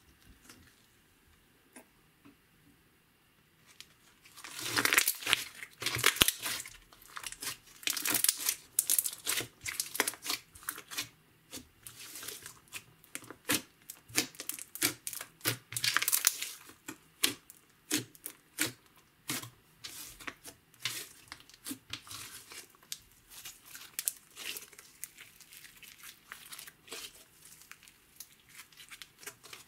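Hands squeezing, kneading and stretching a large mass of glossy slime: dense, sticky crackling and popping. It starts about four seconds in and comes in louder clusters as the slime is pressed.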